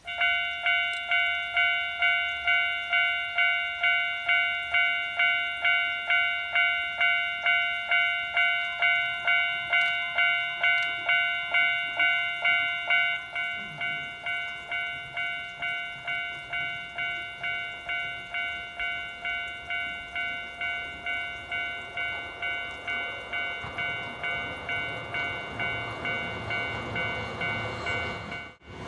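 Japanese railway level-crossing alarm ringing: an electronic bell striking about twice a second, which becomes quieter about halfway through. An approaching train's rumble rises underneath near the end.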